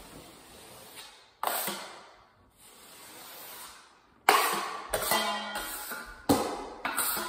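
A steel drywall taping knife scraped several times against the edge of a metal mud pan, cleaning and loading the blade with joint compound: sharp metallic scrapes that start suddenly and ring briefly. Before that comes a faint, soft scraping of the knife across the wall.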